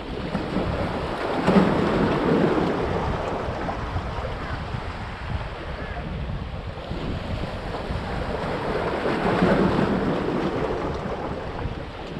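Sea waves breaking and washing against the big stones of a rocky breakwater, in two surges: one about a second and a half in, another around nine seconds in. Under them runs a steady low rumble of wind on the microphone.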